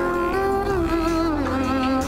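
Background music: a slow melody of long held notes stepping down in pitch over a steady low drone.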